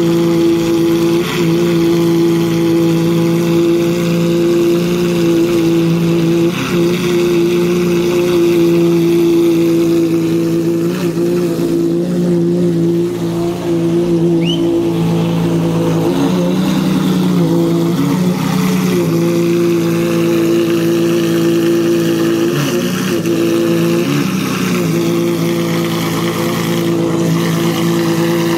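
Maserati MC12 Corsa's 6.0-litre V12 idling steadily and loudly at an even pitch, wavering briefly a few times.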